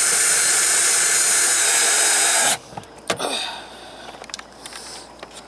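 Power drill driving a screw into metal roofing, running steadily and then stopping abruptly about two and a half seconds in; a few light knocks and clicks follow.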